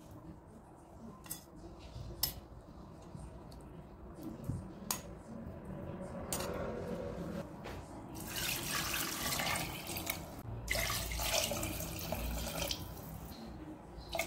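A few light clicks of metal tongs against a stainless steel pot, then water poured from a container into the pot over pork pieces, splashing for several seconds with a short break in the middle.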